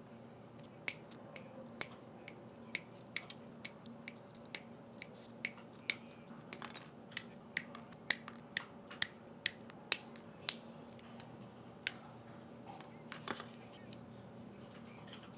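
Plastic model kit parts clicking: a quick, irregular series of sharp snaps and clicks as Gunpla pieces are cut from the runners and pressed together, thinning to a few clicks after about ten seconds, over a faint steady hum.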